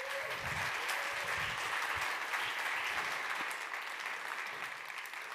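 Audience applauding in a large hall: steady clapping that slowly tapers off toward the end.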